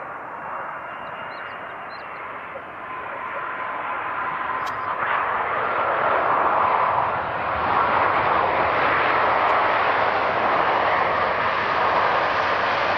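Jet engine noise from a landing Boeing 787 Dreamliner with Rolls-Royce Trent 1000 engines, as it touches down and rolls out. The roar grows sharply louder about five seconds in and stays loud.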